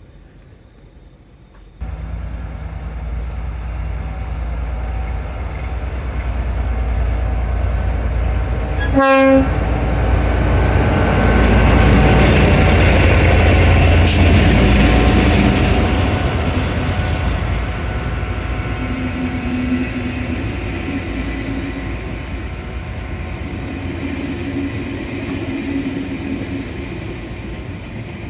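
V/Line N class diesel locomotive hauling a VLocity railcar set past, its engine and wheel noise cutting in suddenly about two seconds in, building to a peak and then slowly fading. It gives one short horn blast about nine seconds in.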